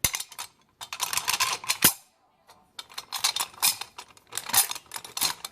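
Steel carriage bolts and metal mill parts clinking and rattling as they are handled and lined up, in quick clusters of small clicks and knocks with one sharper knock and a brief pause about two seconds in.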